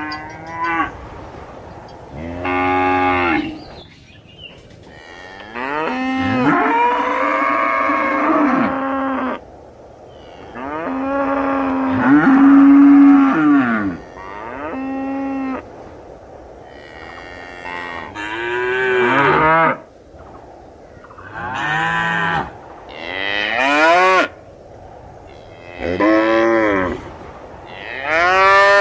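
Cattle mooing again and again: about ten calls of varying length, the longest held for three to four seconds, some rising and falling in pitch.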